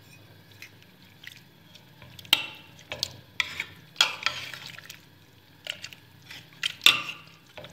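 Boiled vegetables being mashed with a metal utensil in an aluminium pressure cooker pot. The mashing is wet, with scattered knocks of metal on the pot; the loudest come about two, four and seven seconds in.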